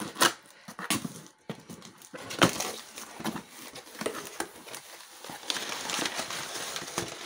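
Cardboard parcel box being cut open and unpacked by hand: a knife scraping through the packing tape, the box flaps knocking as they are opened, then crumpled kraft packing paper rustling near the end. There are a few sharp knocks and scrapes, the loudest about two and a half seconds in.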